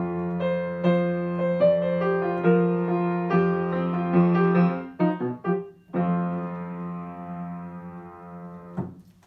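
Grand piano playing the closing bars of a song: sustained chords, a quick run of notes about five seconds in, then a final chord that rings and fades before being damped near the end.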